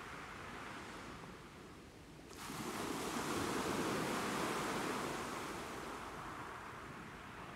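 Sea surf washing on a rocky shore: a steady rushing noise that swells just over two seconds in and slowly ebbs away.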